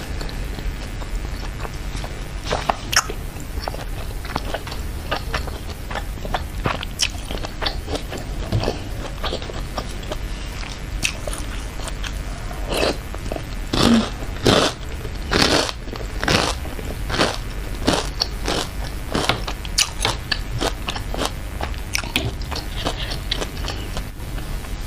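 Close-miked biting and chewing of spicy meatballs and fried tofu in chili broth: wet mouth smacks and soft bites repeated throughout. A burst of louder bites comes about halfway through.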